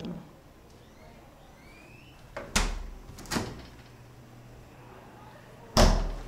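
Doors of a two-door household fridge-freezer being shut and opened: a thump about two and a half seconds in as the fridge door closes, a lighter knock a moment later as the freezer door opens, and a louder thud near the end as the freezer door is shut.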